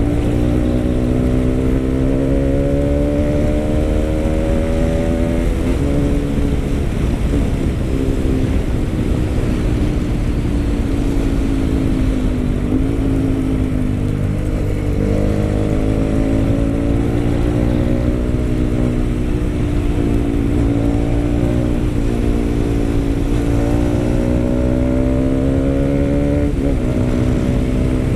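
Pulsar RS200 single-cylinder engine breathing through an aftermarket Akrapovic M1 exhaust, running under load. Its note climbs slowly for several seconds, then drops sharply, about four times, as with gear changes while pulling.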